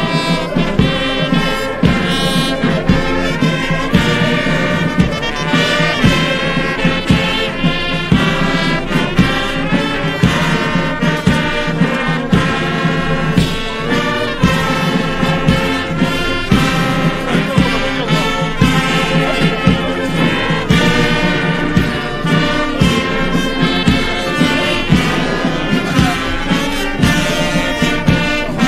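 Military brass band playing a march: trumpets and trombones carry the tune over a steady drum beat.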